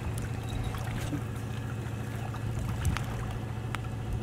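Steady low drone of a distant motorboat engine on the river, with a few faint clicks.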